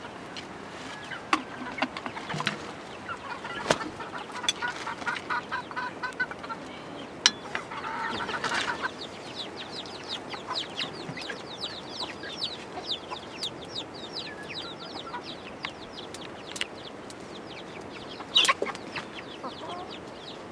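Domestic chickens clucking, with a run of rapid high chirps through the middle and scattered sharp clicks.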